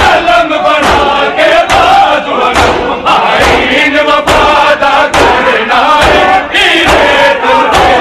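A crowd of men chanting loudly together over rhythmic matam, bare hands striking chests about twice a second.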